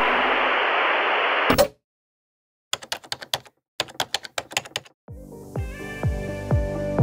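Crowd cheering that cuts off abruptly, then two quick runs of sharp clicks like typing. Music with a steady beat starts about five seconds in.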